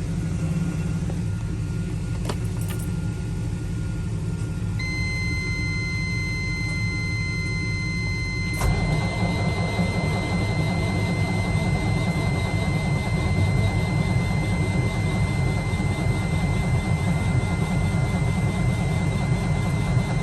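Cat C15 diesel in a Peterbilt cranking on the starter without catching, over a steady low engine rumble. A steady high whine comes in about five seconds in, and about eight and a half seconds in a click is followed by louder cranking that carries on without the engine firing. This is a crank-no-start: the owner finds no power reaching the injectors, so no fuel is injected.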